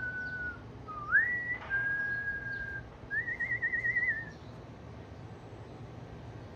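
Clear whistling in pure single notes. A held note, then a quick upward glide into a long steady note, then a fast warbling trill, about four seconds of whistling in all.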